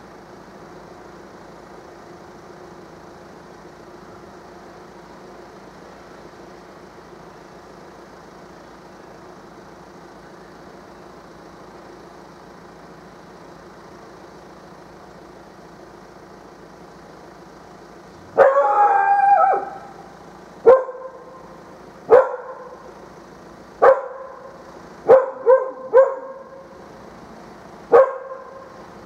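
A dog barking: one drawn-out bark of about a second some two-thirds of the way in, then about seven short sharp barks at uneven gaps. Under it, a steady low hum of street traffic.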